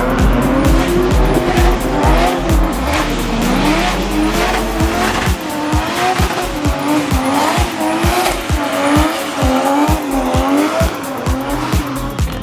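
A drift car's engine revving up and down in quick waves while its tyres squeal and skid through a slide. Music with a steady thumping beat plays over it, the beat plain from about five seconds in.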